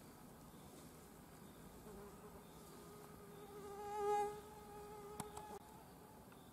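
Mosquito wings whining on one steady high note. The whine starts about two seconds in, swells loud around the middle and cuts off suddenly near the end, with a couple of soft clicks just before it stops.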